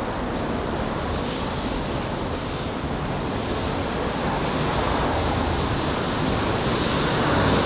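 Steady city street noise: a constant rush of road traffic, growing a little louder near the end.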